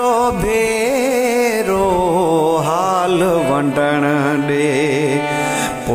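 Sindhi ghazal music: a wavering, ornamented melody line over a steady low drone, with no words sung.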